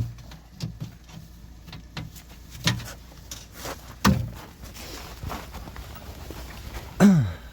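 Metal knocks and scrapes from prying at a frozen forklift engine-cover lid, with a sharper knock about four seconds in and a short sound falling in pitch near the end.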